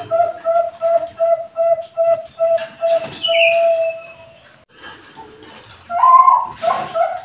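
Perkutut bangkok (zebra dove) cooing: a fast run of short, evenly spaced coos, about three a second, ending in one long drawn-out note about three seconds in. After a short pause a louder coo opens the next run of quick coos.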